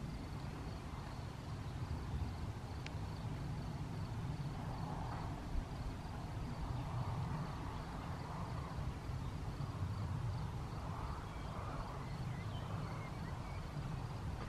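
Gusty wind rumbling and buffeting on the microphone ahead of an approaching thunderstorm front, uneven and gusting harder near the end.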